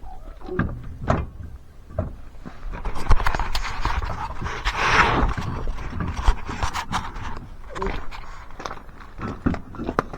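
Scattered knocks and clunks as a side-by-side's tire and wheel are handled and worked onto the hub, with a denser stretch of rustling and scraping partway through.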